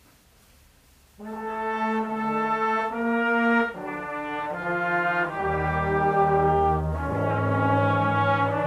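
Brass ensemble playing slow, sustained chords, coming in after about a second of near silence.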